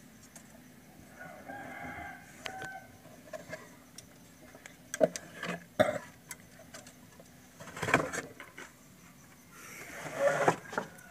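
Several sharp knocks and rustles of a phone being handled. A rooster crows faintly about a second in.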